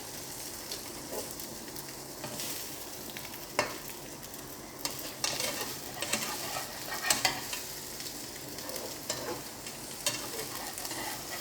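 Egg omelette with vegetables frying in a pan, a steady sizzle, with a few short clicks about three and a half, five and seven seconds in.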